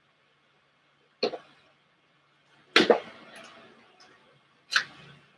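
A person drinking from a plastic water bottle and handling it: three short, sharp sounds, the middle one loudest and trailing off for about a second.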